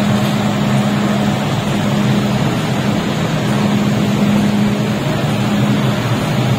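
An MTR M-train standing at the platform with its doors shut, giving off a steady low hum with no rise in pitch, over a continuous rushing noise. The train has not yet started to pull away.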